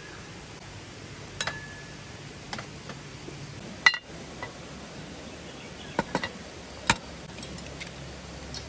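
Scattered light clicks and clinks over a steady background hiss. The sharpest, about four seconds in, rings briefly, as does another near the start.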